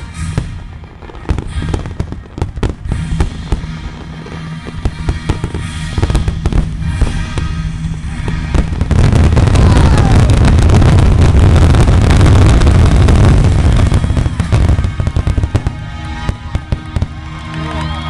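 Fireworks finale: rapid overlapping bangs and crackles from aerial shells. About halfway through they merge into a dense, continuous barrage, the loudest part, then thin out to scattered bangs near the end.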